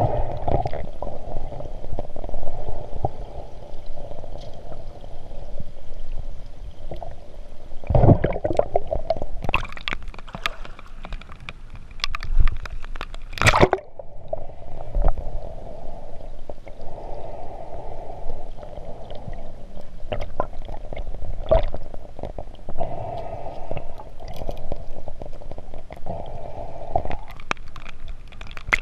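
Muffled underwater sound through a waterproof camera housing: a steady low rush of water with scattered sharp knocks and crackles, two of them loud, about eight and thirteen seconds in.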